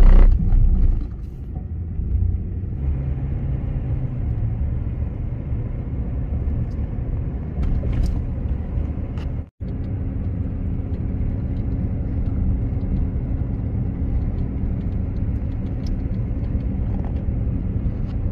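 Steady low road and engine rumble heard from inside a moving vehicle on a paved road. A loud low thud sounds right at the start, and the sound cuts out for an instant about halfway through.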